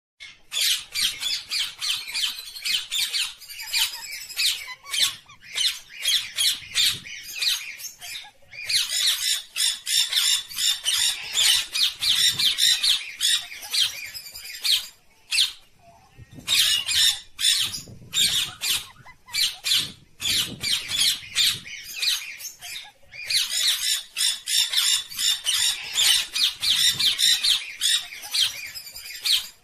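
Parakeets squawking: rapid high-pitched calls in long bouts, broken by three short pauses.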